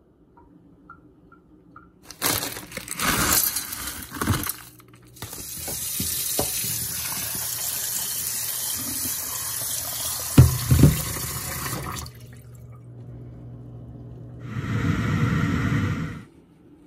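Kitchen tap running into a stainless steel bowl of frozen mixed vegetables, rinsing them in the sink: splashing at first, then a steady stream for several seconds, with a couple of knocks of the bowl near when the water stops.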